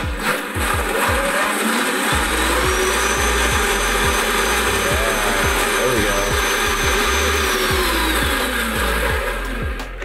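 Power Wheels' electric drive motors and plastic gearboxes whining as the lifted rear wheels spin freely, now powered by a 20V tool battery through a motor controller in forward high gear. The pitch rises about two seconds in, holds, and falls away near the end as the wheels slow.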